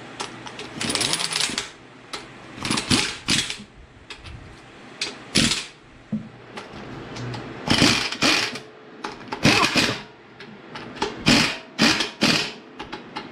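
Cordless impact wrench hammering in repeated short bursts, running the bearing (main) cap bolts down snug on a Ford 8.8 differential carrier before the backlash is checked.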